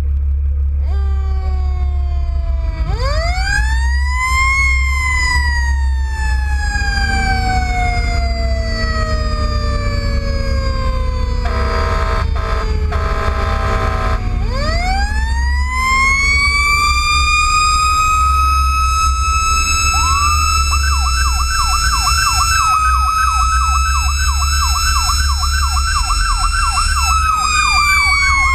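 Fire apparatus warning siren on an engine-tanker running a response: a siren wails up and slowly winds down, an air horn sounds for about three seconds midway, and the siren winds up again and holds high. A fast electronic yelp joins about twenty seconds in, over the steady rumble of the truck's engine and tyres.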